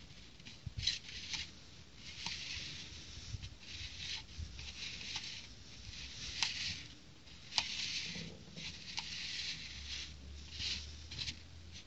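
A plastic plate rubbing and scraping on a wooden table as it is turned by hand, in repeated short strokes, with a few light clicks.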